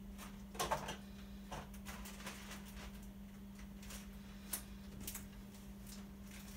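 Quiet room tone: a steady low electrical hum with a few short clicks and taps, the loudest about three-quarters of a second in and another a little past the middle.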